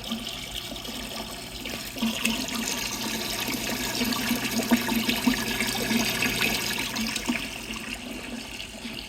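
Graymills electric coolant pump running on a water-filled tank: a steady motor hum under water splashing and gurgling as it circulates. About seven seconds in the motor stops and the splashing dies away to a trickle.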